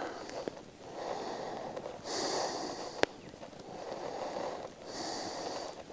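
A man breathing audibly through his nose, two slow breaths in and out, with a single sharp click about three seconds in.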